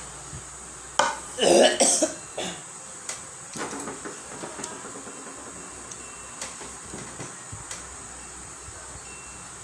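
A person's short, loud throaty burst, like a cough, about a second and a half in. It is followed by scattered light taps and knocks of plastic tumblers being handled and set down on a table.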